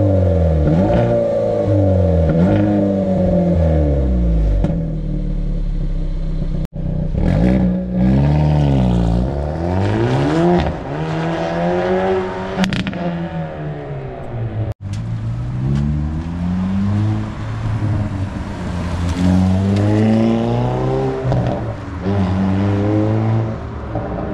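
Hyundai Veloster N's 2.0-litre turbocharged four-cylinder through its stock exhaust, accelerating and easing off again and again, its pitch rising and falling. The sound breaks off abruptly twice, about 7 and 15 seconds in.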